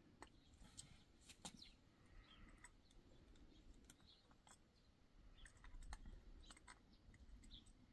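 Near silence with faint, scattered small clicks and snips of pliers working electrical wire, and a few faint high chirps.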